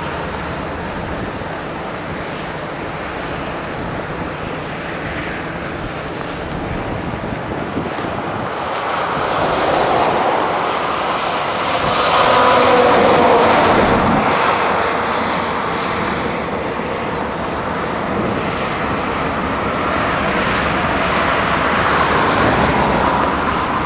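Steady road and engine noise of a moving car, growing louder about halfway through and then easing off a little.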